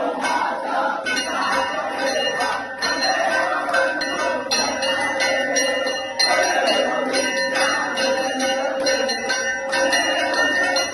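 Temple bell rung over and over, its ringing tone renewed with each strike, over a crowd's voices and hand-clapping in worship inside a flooded Ganesh temple.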